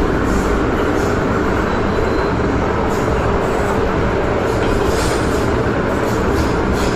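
MTR Island Line M-train running at speed, heard from inside the carriage in a tunnel: a steady rumble of wheels on rail, with a few faint clicks over the rails.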